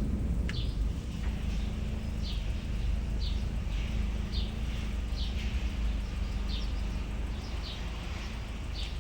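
A small bird chirping over and over, short high chirps about one or two a second, over a steady low background hum.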